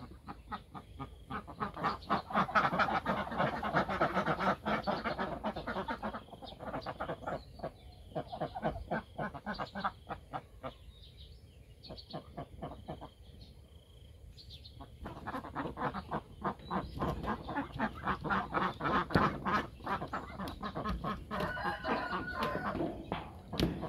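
A flock of penned laying ducks quacking in rapid, overlapping runs of calls. There is a quieter lull in the middle before the calling picks up again.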